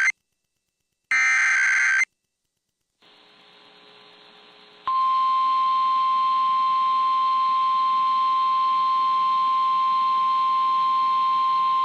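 Emergency Alert System SAME header data bursts from a NOAA Weather Radio broadcast: the end of one burst, then another about a second long. After a short silence and some faint radio hiss, the steady single-pitch 1050 Hz warning alarm tone comes in about five seconds in, signalling that a weather warning message follows.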